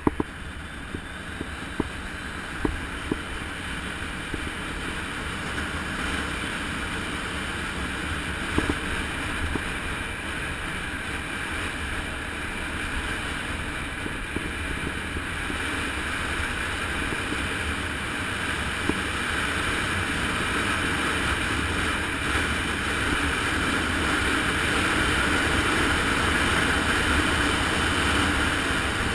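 Wind rushing over the microphone during a fast descent down a mountain road, slowly growing louder as speed builds, with scattered sharp knocks.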